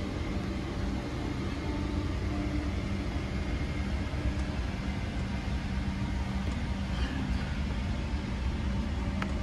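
Steady aircraft cabin noise inside a Boeing 777: a low rumble with a constant hum, with a faint click near the end.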